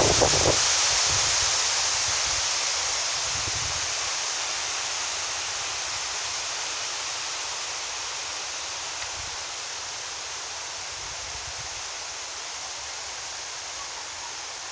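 Strong wind rustling through tree foliage: a steady hiss of leaves that slowly eases off as the gust dies down.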